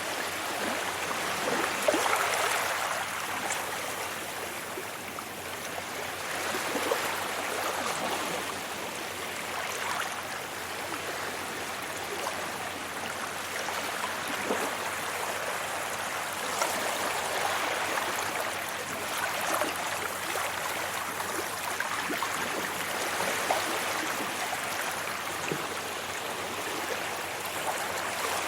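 Sea waves breaking and washing up a beach: a continuous rush of surf that swells and eases every few seconds, with an occasional sharper splash.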